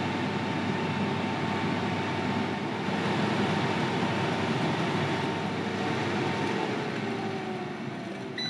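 Philips Airfryer running: its hot-air fan makes a steady whirring hum while roasting at 180 °C. Near the end the hum drops in pitch and fades as the fan winds down. A short beep comes right at the close.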